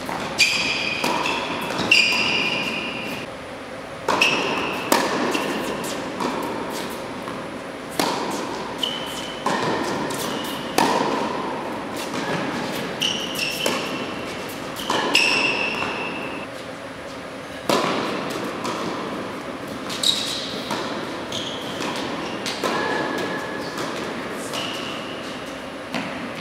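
Tennis ball struck by racquets and bouncing on an indoor hard court during a rally, a sharp hit every second or two, each echoing in the large hall. Short high squeaks of tennis shoes on the court come between the hits.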